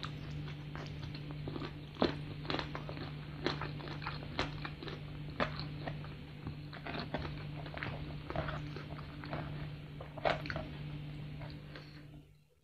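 Close-up biting and chewing of crispy fried chicken: irregular wet crunches and mouth clicks over a steady low hum. Near the end the sound cuts off.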